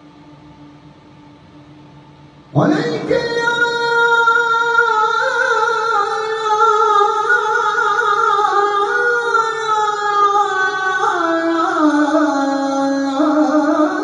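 A man's solo voice chanting a sela (salâ, the Islamic call sung from the minaret) in makam Hüseyni, unaccompanied. It enters loudly about two and a half seconds in, after a moment of room tone, with long ornamented held notes that gradually wind downward in pitch.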